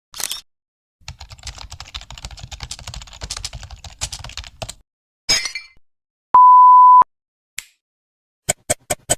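A string of short sound effects. First a brief burst of noise, then about three and a half seconds of rapid clicking like typing on a computer keyboard. After another short burst comes a loud, steady, single-pitched censor bleep lasting just over half a second, and then a few sharp clicks near the end.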